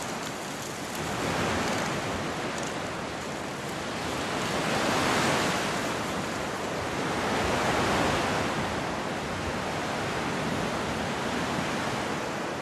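Sea surf breaking and washing in over the shallows, swelling louder twice, about five and eight seconds in.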